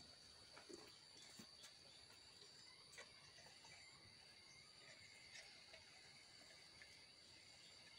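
Near silence: a faint steady high-pitched whine, like distant insects, with a few soft taps.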